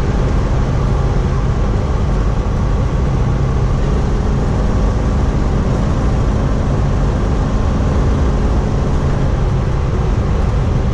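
Cab noise of a Chevy P30-chassis motorhome cruising at a little over 65 mph: a steady drone of engine and tyre-on-road noise.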